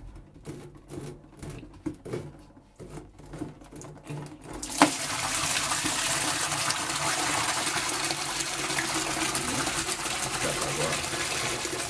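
A threaded plug is unscrewed by hand from a kitchen sink drain pipe, with faint scrapes and clicks. A sharp click comes nearly five seconds in, and then water held back by the blockage pours out of the opened drain pipe in a steady rush.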